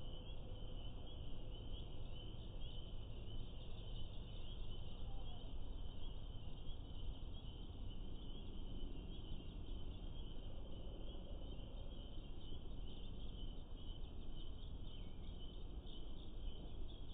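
A steady high-pitched chorus of calling creatures, continuous throughout, over an even low rumbling background noise.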